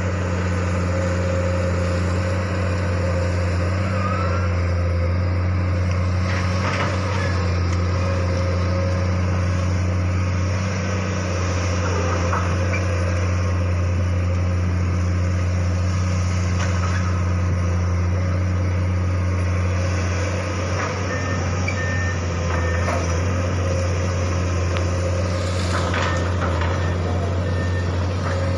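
Komatsu PC200 long-reach excavator's diesel engine running with a steady low drone while it works its arm into the trees, with a few brief cracks about seven seconds in and again near the end.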